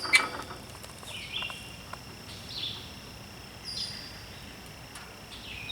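Outdoor ambience with a bird calling: short downward-sliding chirps repeating about once a second, over a faint steady high insect-like tone.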